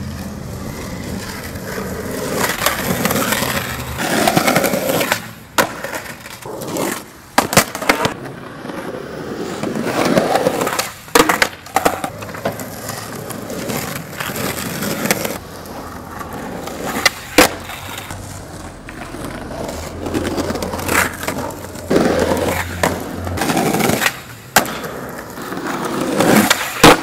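Skateboard wheels rolling over rough, cracked asphalt, broken again and again by sharp clacks and impacts of the board.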